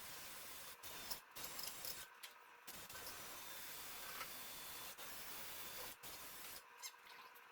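A faint, steady hiss, broken by several brief dropouts, with a few light clicks.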